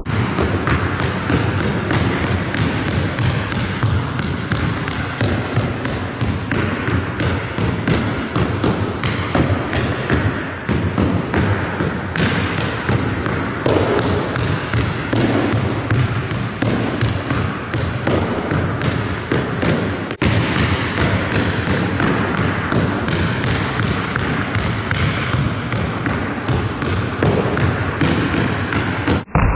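Basketballs being dribbled on a hard gym floor: rapid, overlapping bounces in a continuous, irregular patter during ball-handling drills.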